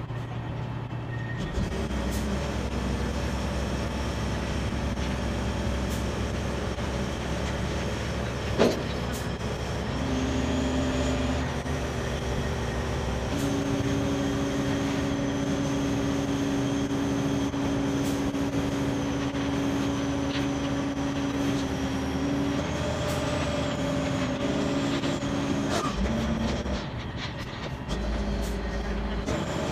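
Mobile crane's diesel engine running under load while hoisting a silo, its engine speed shifting up and down several times as the lift is worked. A single sharp knock comes about nine seconds in.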